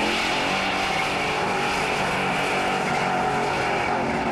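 Car engine running steadily under load while the car drifts, with its tyres skidding on the pavement.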